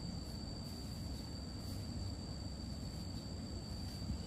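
Insects droning outdoors: one steady, unbroken high-pitched tone with a fainter higher one above it, over a low background rumble.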